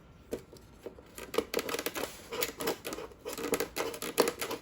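A craft knife scratching and cutting into a styrofoam cooler box along a traced outline, in an irregular run of short scraping strokes.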